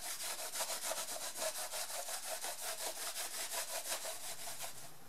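Shop towel wetted with acetone scrubbed briskly back and forth over the aluminium deck of a Saturn S-Series engine block, about six rubbing strokes a second, stopping just before the end. The deck is being cleaned down to bare metal for the new head gasket.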